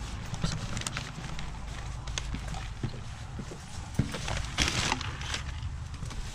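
Footsteps on concrete, then a paper takeout bag rustling briefly about four and a half seconds in as it is set down.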